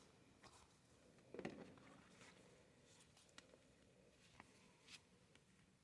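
Near silence, with a few faint, short rustles and taps of paper cards being handled.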